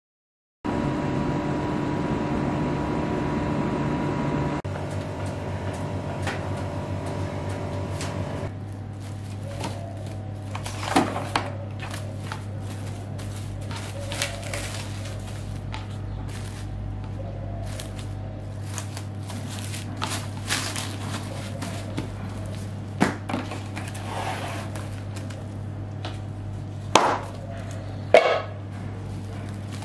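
PVC cling film crackling in short bursts, several times, as it is pulled and pressed around a round pastry, over a steady low hum. The first few seconds hold a louder steady hum with several held tones.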